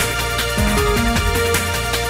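Electronic background music with a steady beat, a held bass line and a short melody of changing notes.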